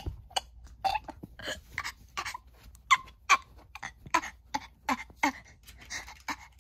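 A person making a string of short, breathy gasps and sobs, about two or three a second, unevenly spaced.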